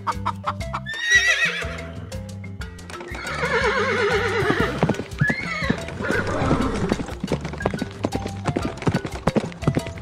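A horse whinnying: a long, trembling neigh falling in pitch a few seconds in, with shorter calls after it, over background music with a plucked beat.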